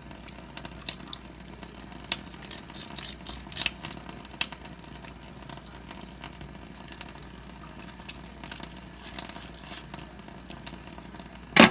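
A serrated knife cutting the bone away from raw chicken thighs: scattered light clicks and soft wet sounds of blade on meat and bone over a steady low hum. Near the end there is one loud knock.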